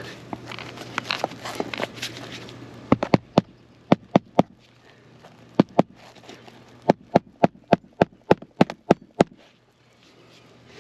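Rustling and scraping of stiff, old asphalt roof shingles being handled. Then a hammer strikes sharply about seventeen times in short runs, roughly three blows a second, as the shingles are nailed back down.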